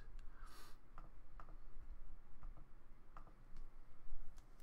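A string of faint, light clicks at irregular intervals of roughly half a second to a second against quiet room tone, the last of them, near the end, a little louder.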